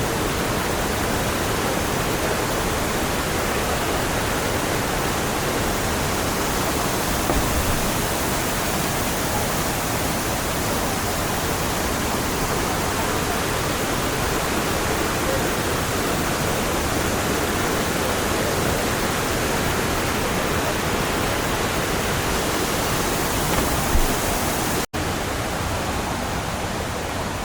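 Waterfall: a steady, loud rush of falling water, cutting out for an instant near the end.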